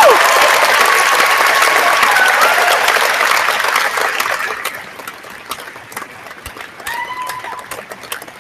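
Audience applauding with some cheers, loud for the first four seconds or so, then dying down to scattered claps.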